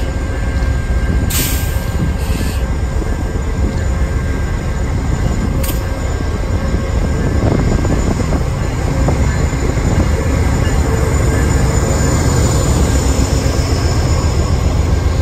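A train running with a steady low rumble, with a few brief clicks in the first few seconds.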